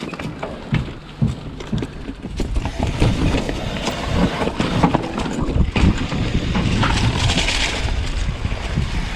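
Mountain bike riding fast down a rocky dirt trail: tyres rumbling over dirt and stones, with frequent sharp knocks and rattles from the bike over the rocks, under a constant rumble of wind on the microphone. A brighter hiss comes in about seven seconds in.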